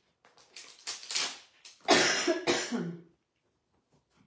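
A person coughing and clearing their throat: a small cough about a second in, then a louder, longer cough about two seconds in that ends in a short falling voiced sound.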